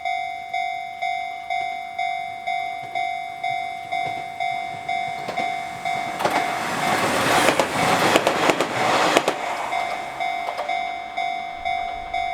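Japanese level-crossing alarm dinging steadily about twice a second while a Nishitetsu Tenjin Ōmuta Line electric train passes through the crossing from about six to ten seconds in, its wheels clattering over the rail joints and louder than the bell. The alarm keeps ringing after the train has gone by.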